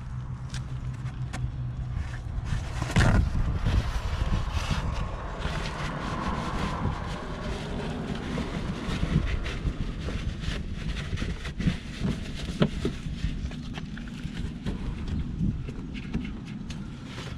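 Hands working under a car at the transmission drain plug: a paper towel rustling as it wipes the area, with scattered tool clicks and a couple of sharper knocks.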